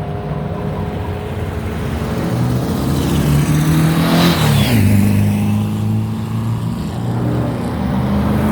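Cars with loud exhausts driving past one after another. One passes close about four seconds in, its engine note rising as it approaches and dropping as it goes by, and another swells up near the end.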